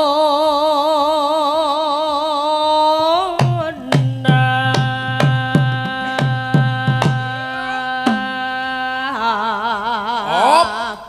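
Javanese gamelan-style music: a woman sings a long held note with wide vibrato, then a quick run of about ten hand-drum (kendang) strokes, each dropping in pitch, under steady held tones, then another held, wavering note that rises and cuts off just before the end.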